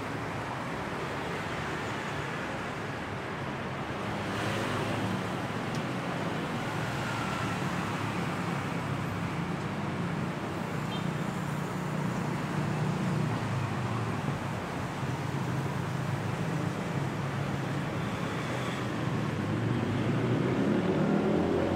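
Road traffic on a busy multi-lane city street: a steady hum of passing car and motorbike engines and tyres, growing louder toward the end.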